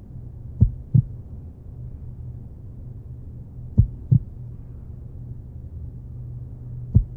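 Slow heartbeat sound effect: three double beats (lub-dub) about three seconds apart, over a low steady hum.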